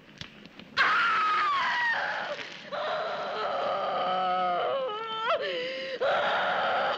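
A woman screaming. A long scream starts about a second in and falls in pitch, then a second scream is held and wavers. A hoarse, rough cry follows near the end.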